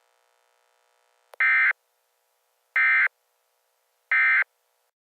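Emergency Alert System end-of-message code: three short bursts of digital data tones, each about a third of a second, spaced evenly about a second and a half apart. It is the SAME 'NNNN' end-of-message signal that closes an EAS alert.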